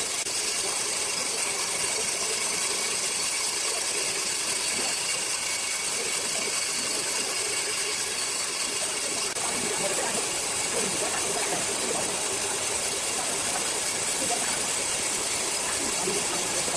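Large sawmill circular saw running: a steady, even hiss strongest in the high range, with no breaks.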